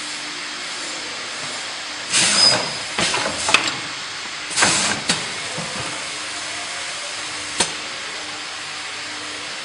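ZV-720 vertical powder packing machine running, with a steady mechanical hiss and faint hum. Three short, loud hissing bursts come about two, three and four and a half seconds in, and a single sharp click about three quarters of the way through.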